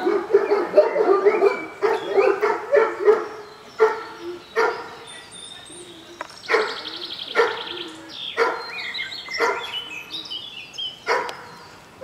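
Dogs barking and yipping in play: a fast, dense run of high yips for the first three seconds or so, then single barks about once a second.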